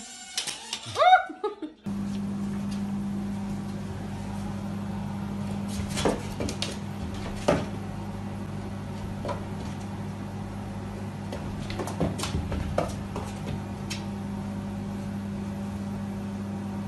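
A steady low hum, with a few light taps and clicks scattered through it. About the first two seconds hold a few short sounds that slide up and down in pitch before the hum sets in.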